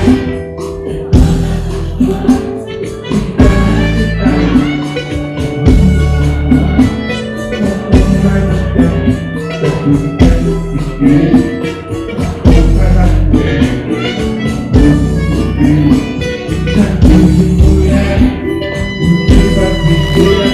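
Live samba band music with guitar and drums, and a man singing into the microphone over it.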